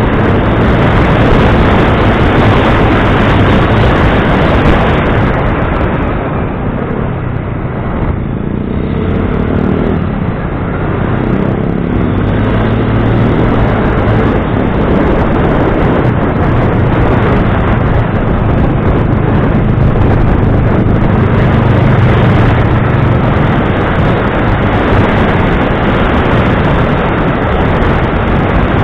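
An engine running steadily under loud rushing noise, easing off for a few seconds about six seconds in before picking up again.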